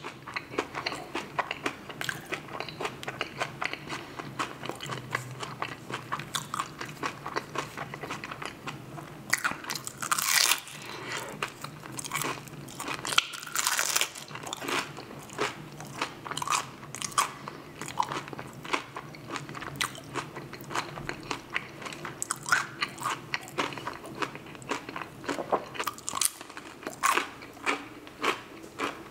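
Close-miked eating: crunchy bites into crispy fried food and steady wet chewing, with louder crunches about ten seconds and about fourteen seconds in.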